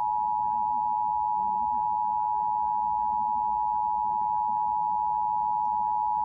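Emergency Alert System attention signal: the steady two-tone alarm of an EAS test, broadcast over the radio, holding one even pitch and level throughout.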